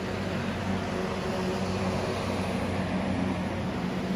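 Steady road noise from traffic on the highway below, over an even low mechanical hum.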